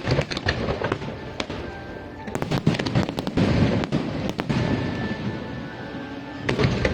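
Aerial fireworks going off in quick succession, a string of bangs and crackles, with clusters at the start, about two and a half seconds in, and near the end. Music plays in the background.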